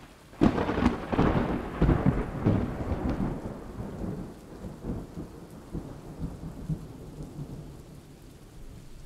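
A clap of thunder cracks about half a second in and rolls away over the next few seconds, over steady falling rain.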